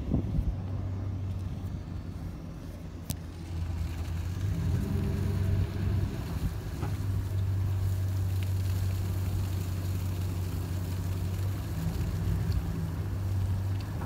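Ram pickup truck's engine running at a steady low drone while towing a loaded tank trailer at slow speed, getting louder about four seconds in.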